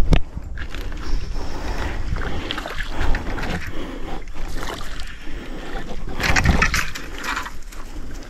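Water noise with wind buffeting the microphone, and a louder burst about six seconds in.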